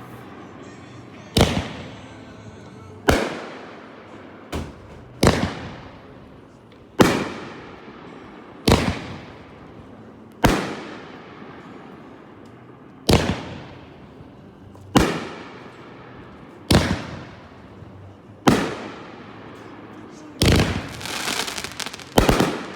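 Lidu 'Fire Fury' firework firing a string of single shots. Each is a sharp bang about every two seconds that fades off with a crackling tail. Near the end it breaks into a denser burst of crackling bangs.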